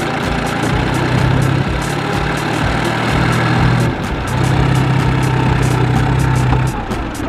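Diesel engine of a New Holland farm tractor running hard under load as the tractor tries to climb out of deep mud. The engine tone holds steady, dips briefly about four seconds in, and eases off near the end.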